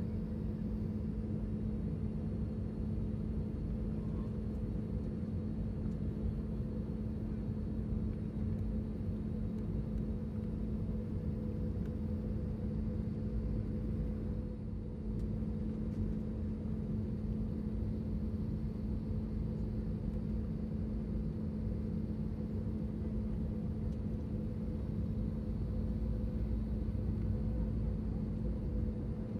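Airbus A321 cabin noise with the engines running: a steady low rumble with a constant hum.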